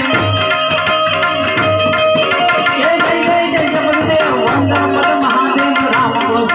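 Instrumental interlude of an Indian devotional song: a held melody line over a steady hand-drum rhythm with shaker-like percussion, and no singing.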